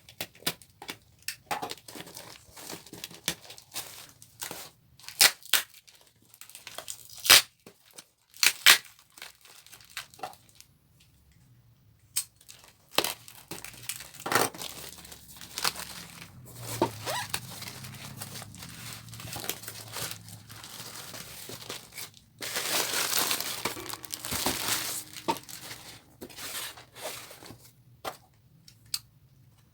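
A package's wrapping being handled and torn open: crinkling and sharp crackles, with a longer tearing stretch about three-quarters of the way through.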